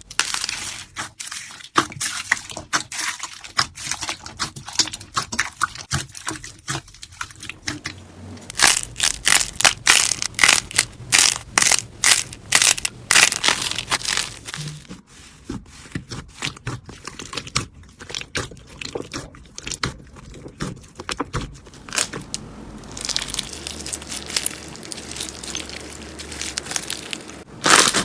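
Slime being pressed and squeezed by hand, giving dense runs of rapid crackling and popping clicks that come in waves.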